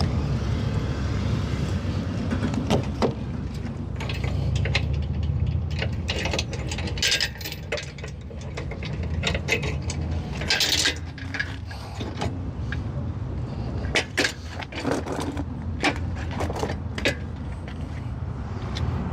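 Trailer being unhooked from a pickup's ball hitch: steel safety chains clinking and the coupler and hitch parts clanking in irregular short metal clicks, with a brief rattle about two thirds of the way through, over a steady low rumble.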